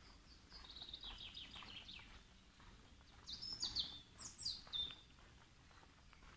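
Woodland songbird singing: a run of quick high notes that falls slightly in pitch, then a second, louder phrase of high sweeping notes about a second later.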